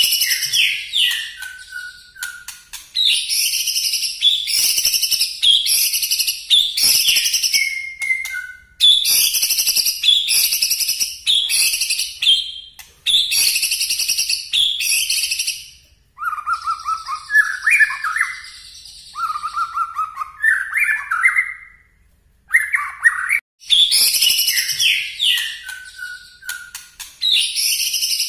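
White-rumped shama singing loudly: rapid bursts of sharp, high notes repeated phrase after phrase, the piercing 'nembak' song. About halfway through it drops to a softer stretch of lower warbling notes for several seconds, then returns to the loud bursts.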